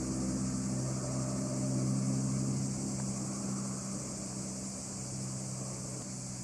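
A distant engine's low, steady hum with a clear pitch, slowly fading over the later seconds, over a constant high hiss of insects.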